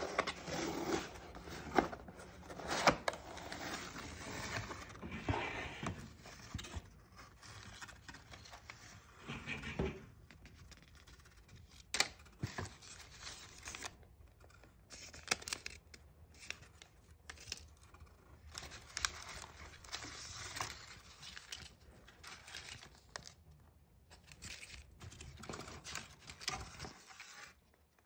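Cardboard box flaps opened by hand, then triangular paper specimen envelopes handled and shuffled, giving irregular crinkling and rustling with sharp clicks; the handling is busiest in the first few seconds.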